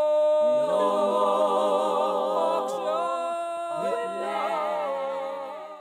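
Unaccompanied vocal group singing slow, held notes in harmony. The chord changes about half a second in and again near four seconds, then the voices fade out at the end.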